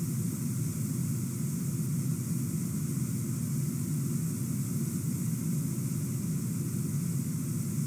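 Water pouring over a low river waterfall and rushing through the shallows: a steady, unchanging low rumble with a hiss above it.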